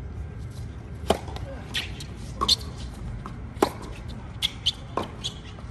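Tennis ball being struck and bouncing on a hard court: a handful of sharp pops, irregularly spaced a second or two apart, with fainter high ticks between them.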